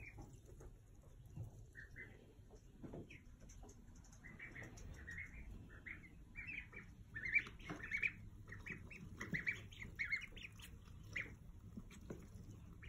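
Several ducklings peeping in short high calls, a few at first, then many in quick succession from about four seconds in.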